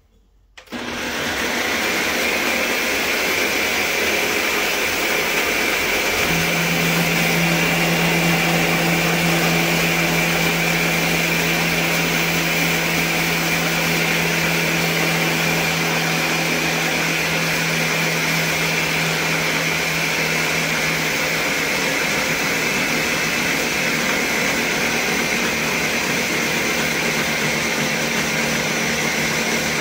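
Ninja countertop blender starting up about a second in and running steadily while whipping cream, with a constant high whine over the motor noise.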